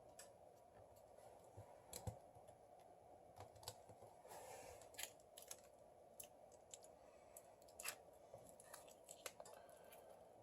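Faint, scattered clicks and taps of small Samsung Galaxy S7 Edge parts being handled and pressed into the phone's frame, with a short scraping rustle around the middle, over a steady background hum.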